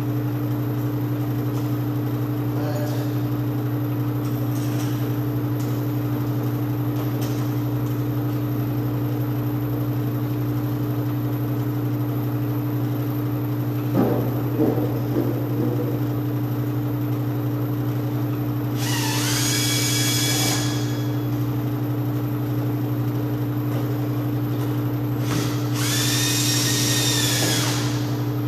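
A power drill spins up and winds down in two short runs, driving lock screws, over a steady low hum. There is a brief clatter of metal parts about halfway through.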